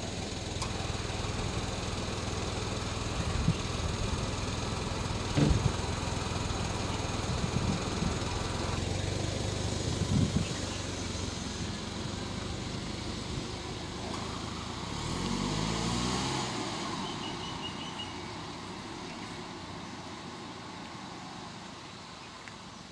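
Car engine idling steadily, with a few sharp knocks. About fifteen seconds in, a car pulls away, its engine note rising and then fading. A short high chirp follows in the quieter air.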